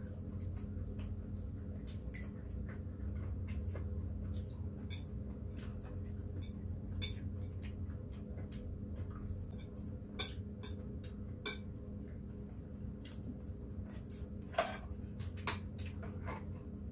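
Metal chopsticks and spoons clicking and clinking irregularly against ceramic plates and bowls during a meal, with one sharper clink near the end. A steady low hum runs underneath.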